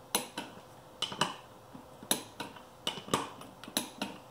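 Click-type torque wrench breaking at 20 ft-lb on beadlock clamp-ring bolts, with metal clinks of the socket going onto the bolts: about ten sharp clicks at uneven spacing. Each break means that bolt has reached its set torque.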